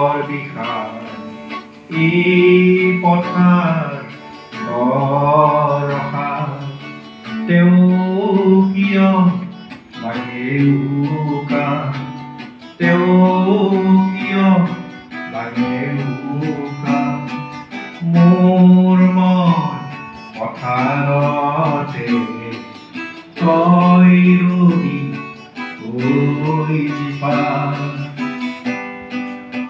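A man singing a song into a handheld microphone, accompanied by a strummed acoustic guitar. The song goes in phrases of about two seconds with short breaks between.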